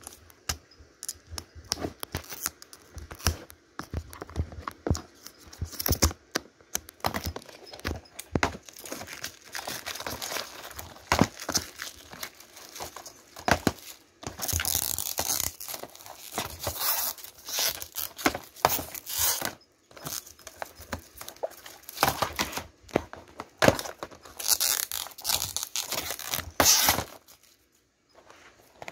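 Plastic wrap crinkling and tearing, with many sharp clicks and knocks from plastic DVD cases being handled. The longest stretches of crackling come about halfway through and again a few seconds before the end.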